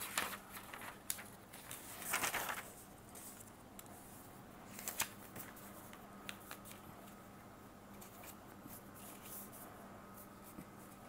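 Faint rustling and handling of a paper sheet being turned over on a clipboard. There are a few short rustles and clicks, the loudest near the start and about two seconds in.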